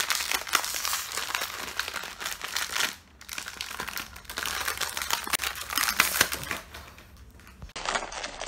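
Blind-bag packet crinkling and crackling as it is squeezed and pulled at by hand in a struggle to tear it open, with a brief pause about three seconds in.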